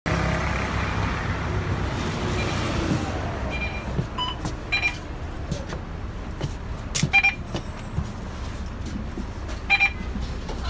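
Volvo B9TL double-decker bus engine running as the bus pulls up and idles at the stop. From a few seconds in, several short electronic beeps sound over the engine, about five in all, as passengers board.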